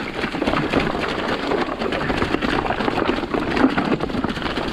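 A bike being ridden down a leaf-covered dirt trail: tyres running through dry leaves and loose ground, with the bike rattling over bumps in a steady stream of fine ticks and clatter.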